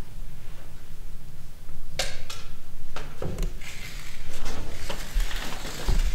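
Scattered sharp knocks, scrapes and low thuds of performers moving about a stage, with a rustling stretch about four seconds in.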